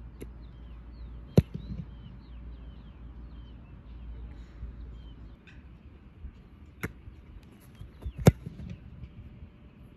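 A sharp thump of a boot striking a held football in a place kick, the loudest sound, about eight seconds in, with two other sharp knocks, one about a second in and a weaker one shortly before the kick. Small birds chirp in the background during the first half.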